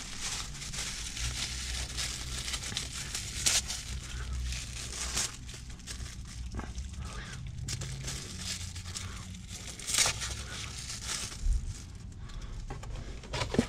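Fast-food packaging being handled: paper and plastic crinkling and rustling, with scattered sharp clicks and snaps, over a low steady hum.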